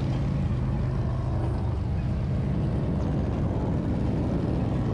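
Harley-Davidson Road Glide's Twin Cam 103 V-twin engine running steadily under way, a constant low drone with no change in pace.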